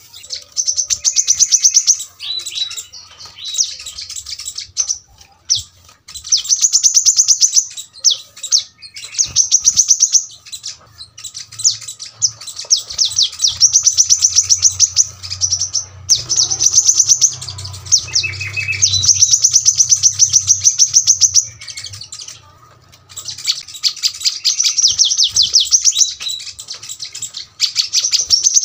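Brown-throated sunbird (kolibri kelapa) singing fast, sharp trilled phrases of rapidly repeated high notes, each phrase one to three seconds long, with short pauses between them.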